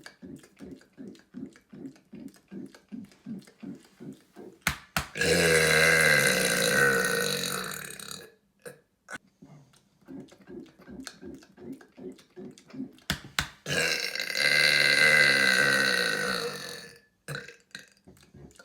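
A man letting out two long, loud burps, each lasting about three seconds and starting about five and fourteen seconds in. Between and around them come quieter short pulses, about three or four a second.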